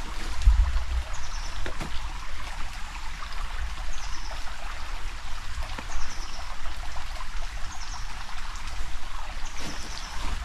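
Shallow creek trickling over stones, a steady watery hiss. A short high falling chirp repeats about every two seconds, over a low rumble.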